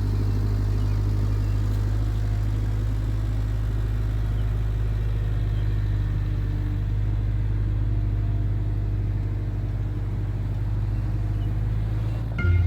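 Diesel engine of an Avant 640 compact loader running steadily at idle, a constant low rumble.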